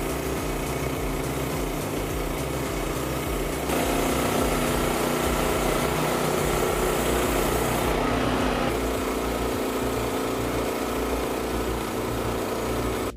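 Small petrol engine of a portable band sawmill running steadily, getting louder about four seconds in and easing slightly near the end.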